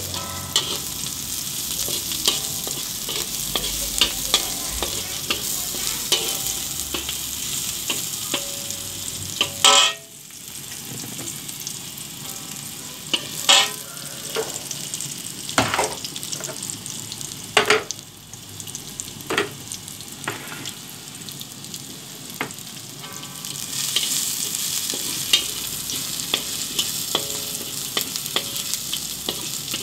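Chopped shallots, garlic and ginger sizzling in oil in a wok while a spatula stirs and scrapes against the pan. A steady sizzle runs under the stirring, with several sharper, louder scrapes of the spatula in the middle stretch.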